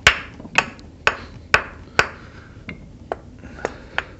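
Sharp metallic taps with a brief ring: five hard strikes about two a second, then four lighter ones. A hand tool is knocking at the carburetor to loosen a stuck emulsion tube.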